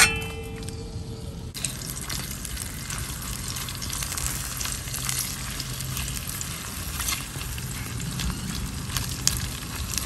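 Sliced onions tipped into hot palm oil in an enamelled cast-iron pot: a sharp knock with a brief ringing tone, then the oil sizzling from about a second and a half in, with small clicks and scrapes of a spatula stirring the onions.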